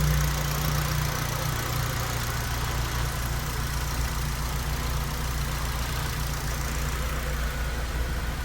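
Honda Civic Si (FA5) K20 four-cylinder engine idling steadily.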